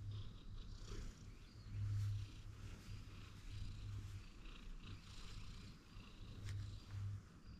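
Orange-and-white cat purring close up as it is stroked on the head, a low rumble that swells and fades with each breath.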